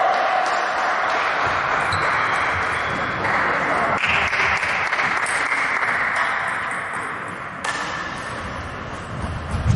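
Table tennis ball taps echoing in a large sports hall, a few sharp clicks over steady hall noise.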